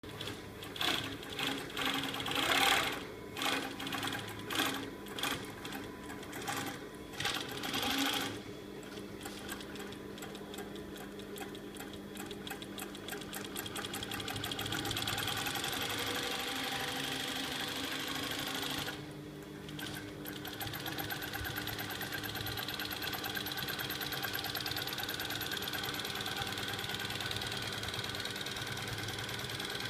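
Taking TK-592 double-needle post-bed leather sewing machine stitching: short stop-start bursts for the first several seconds, then running steadily at speed, with a brief slowdown about two-thirds of the way through before it picks up again.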